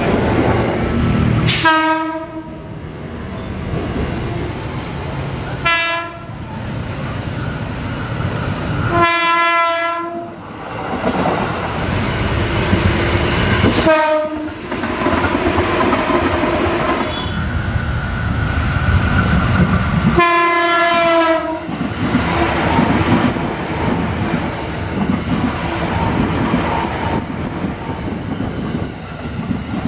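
Horn of a KRL Commuter Line 205 series electric train (ex-JR East 205 series) sounding five times: three short blasts and two longer ones of about a second. Between the blasts there is the steady rumble and wheel clatter of the train running.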